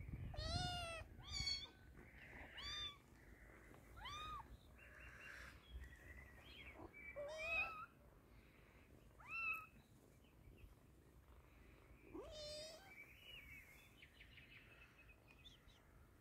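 Kitten meowing repeatedly: about eight short cries that rise and fall in pitch, close together in the first few seconds and then a few seconds apart.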